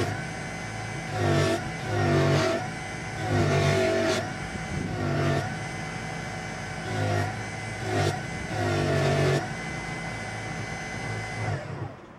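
Small Proxxon polishing motor spinning a cloth buffing wheel as a knife is pressed against it. The motor runs steadily and swells with a short dip in pitch each time the knife loads the wheel, about seven times. It cuts off near the end.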